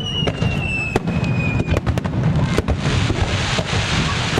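Fireworks display: a whistling shell's tone falls slowly and ends about two seconds in, amid many sharp bangs and cracks over a constant low rumble. A dense crackling hiss fills the second half.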